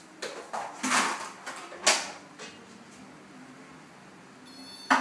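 A Siamese cat hissing: a run of short, sharp hisses over about two seconds, the two loudest about a second apart, then another near the end.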